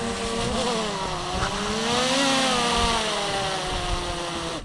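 Boat motor running, its pitch rising about two seconds in and then falling again; it cuts off suddenly at the end.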